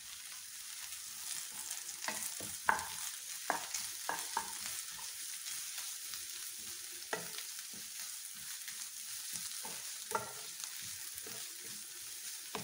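Wooden spatula stirring and scraping chopped vegetables and moringa leaves around a non-stick kadai, in irregular strokes, over a steady light sizzle of frying.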